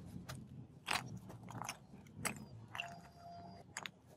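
Lumps of charcoal dropped one after another onto wire mesh inside a small brick forge, clattering and crunching against each other in a string of separate knocks.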